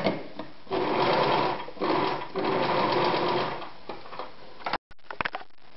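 Anker 220 Super Stretch sewing machine stitching a straight seam through fabric, run in three short spurts that die away after a few seconds. A few clicks follow near the end.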